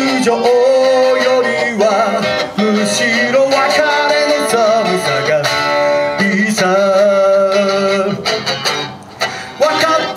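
A man sings a song with vibrato, accompanying himself on an amplified electric guitar.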